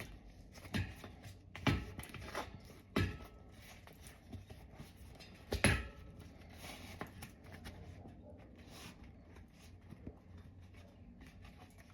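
Faint handling noises from a bicycle tire and inner tube being worked onto a wheel rim: a few short knocks, the loudest a little before halfway, with light rubbing and rustling between them.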